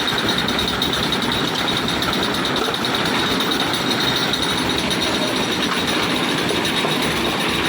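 Concrete mixer machine running: a loud, steady mechanical noise with a thin, steady high whine over it.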